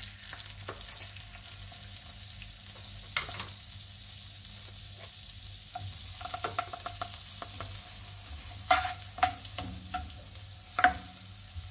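Butter melting and sizzling faintly in a hot nonstick pan, with a spatula knocking and scraping against the pan several times in the last few seconds as the butter is stirred.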